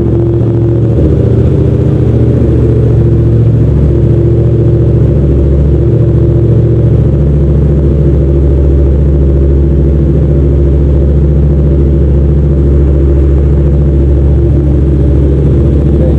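Yamaha MT-07's parallel-twin engine idling steadily through a full Jeskap aftermarket exhaust of the deep-toned kind, with the bike remapped and the exhaust's dB killer removed.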